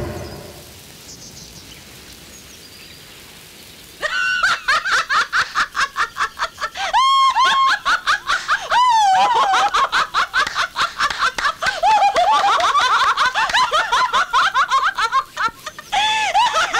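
Music fades out, and after a few seconds of quiet a high-pitched laugh starts suddenly about four seconds in. It carries on in rapid, cackling pulses with rising and falling swoops of pitch, with a short lull near the end.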